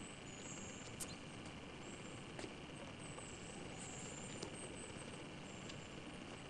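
Steady camcorder tape hiss with no speech. A couple of light clicks come through it, one about a second in and another near two and a half seconds, likely from handling the camera as it swings about.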